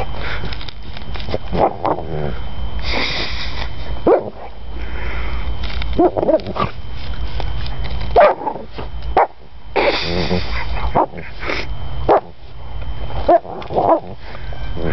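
Labrador retriever with its nose down a hole in the lawn, digging after a mole, sniffing hard and letting out short barks and whimpers every second or two.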